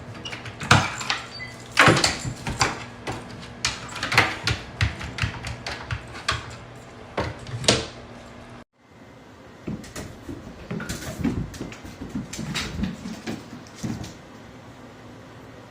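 Irregular series of knocks, taps and clatter, broken off by a brief silence a little past halfway, after which the knocking resumes more softly.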